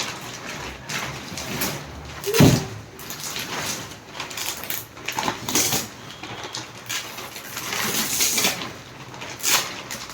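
Irregular rustling, scraping and bumping of packaging being handled as a mattress is unpacked, with a sharper knock about two and a half seconds in.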